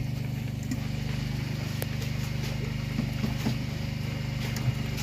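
Small fishing boat's engine running steadily, an even low drone, with a few faint clicks over it.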